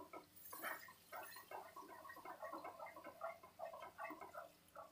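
Wooden spatula stirring a thick masala of onion, tomato and yogurt in a metal kadai, kept going without pause so the yogurt does not curdle. Faint, irregular soft scrapes and small wet squelching blips, several a second.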